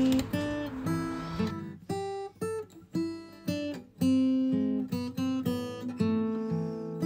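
Background music: an acoustic guitar playing a steady run of chords in an instrumental passage of a song.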